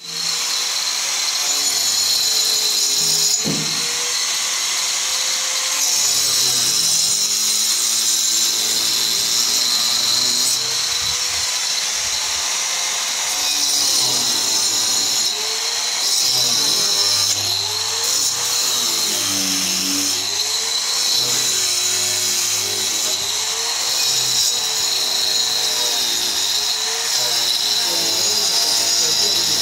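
Handheld angle grinder running steadily as its disc cuts a groove into a cement block wall for electrical conduit: a high, steady whine over a cutting hiss. A melodic music track plays underneath.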